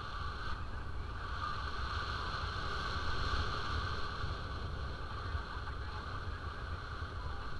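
Wind rushing over the microphone of a paraglider pilot in flight: a steady rush with heavy low buffeting and no break.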